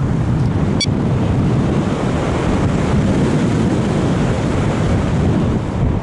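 Airflow rushing over the onboard action camera's microphone on an RC sailplane in gliding flight: a steady, loud wind rush with no motor. A brief click about a second in.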